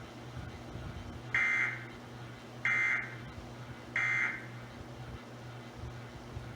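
Emergency Alert System End of Message signal: three short bursts of digital data tones, evenly spaced about 1.3 s apart, marking the end of the alert test. A faint steady hum lies underneath.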